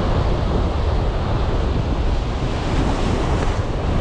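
Rough surf breaking and washing in whitewater over and around shoreline rocks, a steady rush of noise, with wind buffeting the microphone.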